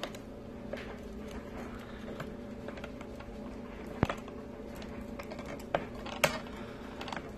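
A few sharp plastic clicks and light handling noises from the clips and parts of a fuel pump hanger assembly being worked by hand, the loudest about four seconds in and again about six seconds in, over a steady low hum.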